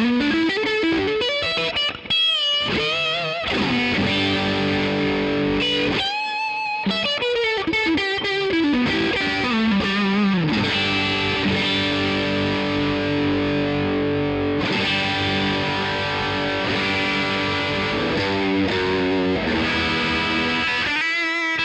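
Epiphone Les Paul 100 electric guitar played through a Hughes & Kettner amp: lead lines with slides and wide vibrato on held notes, ringing chords in the middle, and quicker runs of notes near the end.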